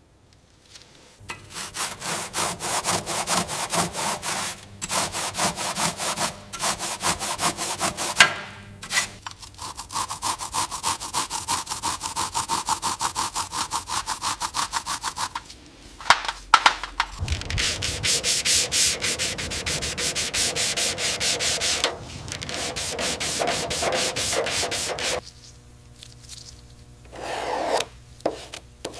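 Hand sanding: an abrasive rubbed over a surface in quick back-and-forth strokes, several a second, in long runs broken by short pauses. Near the end it stops and a different pitched sound comes in short bursts.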